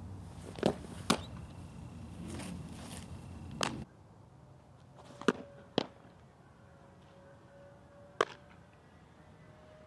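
Softball pitches smacking into a catcher's mitt: a series of sharp single pops, six in all, some close together.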